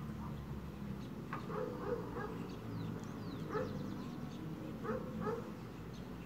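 Stone mano scraping back and forth over a volcanic-stone metate, grinding toasted sesame seeds into paste. Over it, short high animal calls recur every second or so.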